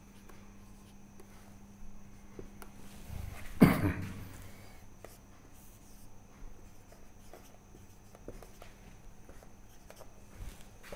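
Marker pen strokes and taps on a whiteboard as numbers and division brackets are written, with one much louder thump about three and a half seconds in.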